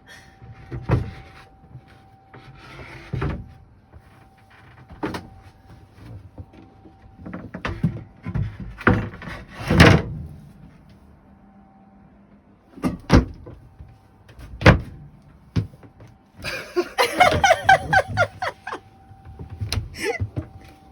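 Wooden cabin floorboard in a sailboat being knocked and pushed back into its opening: a series of separate thumps and knocks, the loudest about ten and fifteen seconds in, then a busier stretch of clattering near the end.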